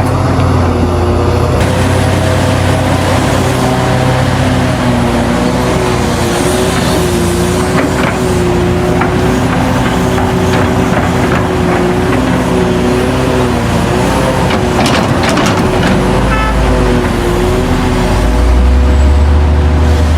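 Heavy diesel engines of a large mining excavator and dump trucks running under load. The engine note wavers slightly in pitch, with scattered clanks and knocks, and a deeper rumble grows louder near the end.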